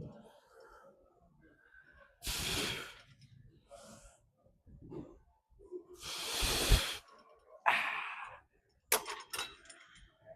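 A man breathing hard from exertion, with three loud, forceful breaths a few seconds apart and softer ones between. A few sharp clicks come near the end.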